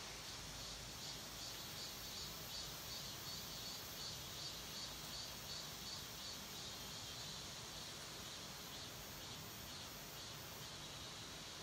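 Faint insects chirping in a steady rhythm, about two to three pulses a second, over a low, even outdoor hum.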